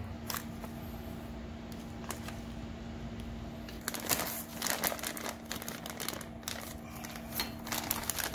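Thin plastic bag crinkling and rustling in irregular crackles as it is unwrapped by gloved hands, starting about halfway in, over a faint steady hum with a few light clicks before it.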